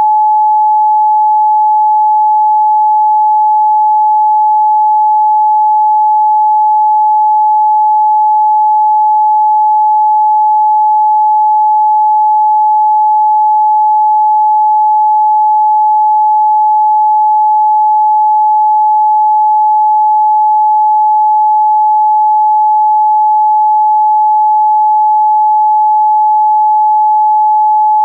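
A pure 855 Hz sine test tone, held steady and unbroken, with no harmonics or other sound.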